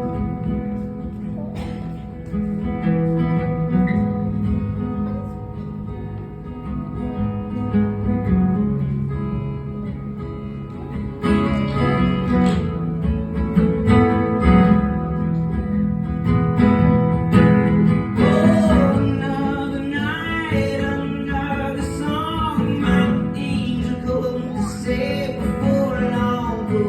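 Music: an instrumental break of an acoustic song, with acoustic guitar playing throughout. About two-thirds of the way in, a wavering lead melody comes in over the guitar.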